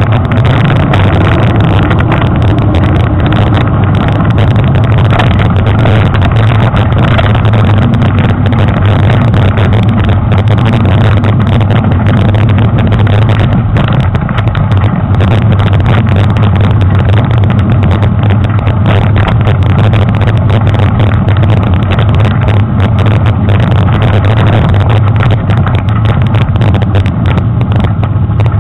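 Loud, steady rumbling noise picked up by a handlebar-mounted action camera while a mountain bike rides a dirt trail: the bike's vibration and rattle over the rough ground, and wind on the microphone.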